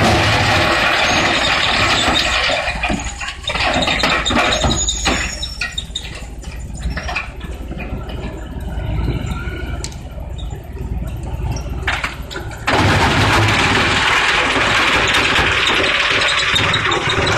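Belt-driven industrial wood shredder chewing up branches: a dense grinding noise, then a quieter stretch broken by many sharp cracks and snaps of splintering wood. About two-thirds of the way through it gives way abruptly to a louder, steady machine noise.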